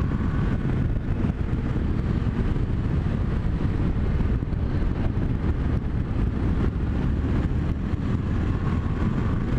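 Yamaha Tracer 700's 689 cc parallel-twin engine running steadily under light load at a cruise of around 50 mph, mixed with wind rush, heard through a helmet camera. The fuelling is smooth, with no stumble.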